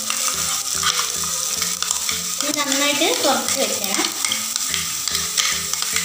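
Oil tempering sizzling in a nonstick pan as ground coconut chutney paste is stirred into it with a wooden spatula: a steady frying hiss with scattered clicks and scrapes of the spatula against the pan. A short wavering squeak sounds about three seconds in.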